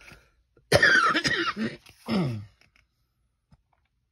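A woman coughing and clearing her throat: a loud cough about a second in, then a shorter throat-clearing sound that falls in pitch.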